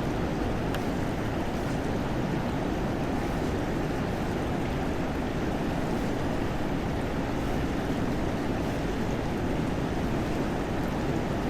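Steady rushing of river current flowing past, with no change throughout.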